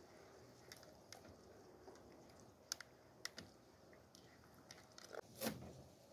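Hands massaging a spice marinade into a whole raw chicken in a plastic bowl: faint wet squishing with a few soft clicks, and a louder knock near the end.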